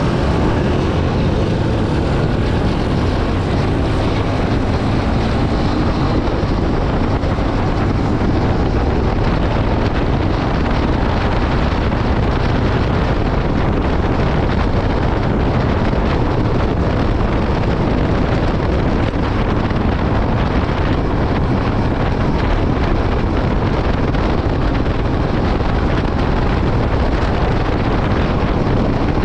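Yamaha Byson FZ16's 153 cc single-cylinder four-stroke engine running steadily through its stock exhaust, with no revving.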